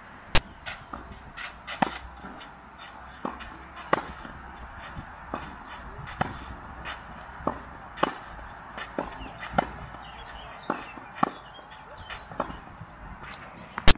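A tennis ball being struck by rackets and bouncing on the court during a rally: a string of sharp pops, the loudest every one to two seconds.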